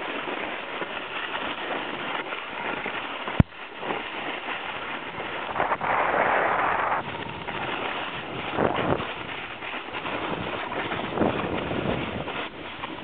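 Wind rushing over the camera microphone, a steady rough hiss, with a sharp knock about three and a half seconds in and a louder rush for about a second around six seconds.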